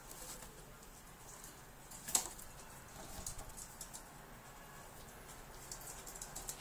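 Faint scratching, rustling and light clicks of a Siberian chipmunk moving about its cage, with one sharp click about two seconds in.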